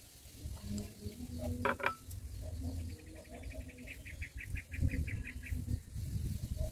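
A rapid series of high chirps starts about three seconds in, slows, and stops a couple of seconds later, over a low rumble.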